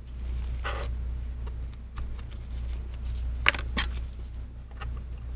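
Small metal repair tools (a flat pry tool and tweezers) handled on the work surface and iPad frame: a short scrape about a second in and two sharp clicks a little past the middle, over a steady low hum.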